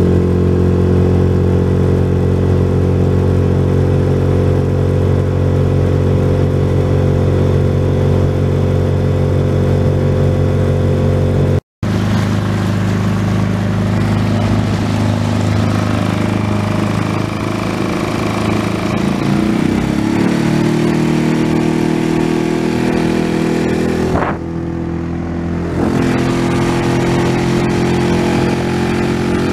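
Suzuki DF6AS single-cylinder 138 cc, 6 hp four-stroke outboard running steadily at high throttle, pushing the boat at about 21 km/h. The sound cuts out for a moment about twelve seconds in, and the engine note rises in pitch about two-thirds of the way through.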